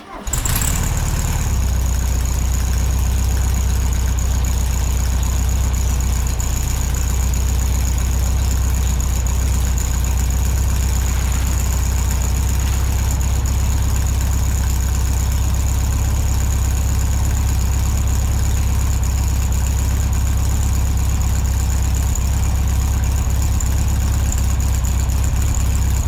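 An engine idling steadily and evenly, loud, with a constant low rumble.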